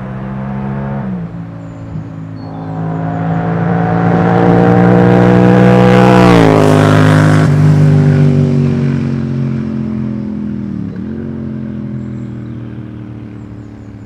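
Yamaha MT-07's 689 cc parallel-twin engine through an Akrapovič exhaust with the baffle (dB killer) removed, riding past under acceleration. The engine note climbs as it approaches, peaks and drops in pitch as the bike goes by about six seconds in, then fades as it rides away, with brief dips in pitch at gear changes about a second in and near eleven seconds.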